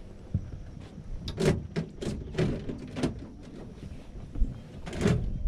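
Irregular knocks and thumps against an aluminum fishing boat as the anglers move about and handle gear during a fish fight. The loudest come about a second and a half in and near the end.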